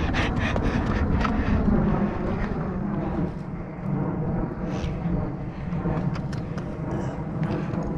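Stunt scooter wheels rolling over rough concrete: a steady rumble with scattered small clicks and rattles.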